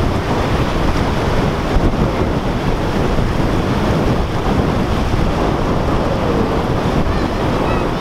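Rushing whitewater of a dug-open lagoon outflow channel pouring toward the sea and breaking into a standing wave: a steady, loud rush of water, with wind buffeting the microphone.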